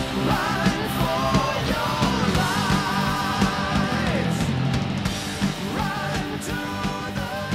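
Background rock music with a sung vocal line over a full band.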